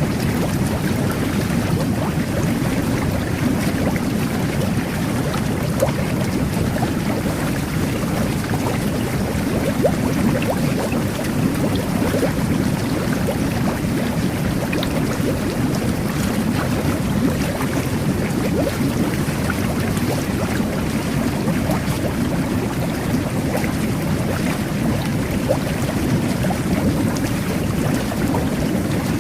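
Jet bath (whirlpool tub) churning the bathwater: a steady, even rush of bubbling water, heaviest in the low range, with fine crackles of bursting bubbles throughout.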